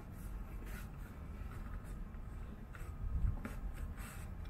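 Soft scratching and rustling as fingers push a dash camera's cable in behind the car's headliner trim, in a few short scrapes over a low rumble.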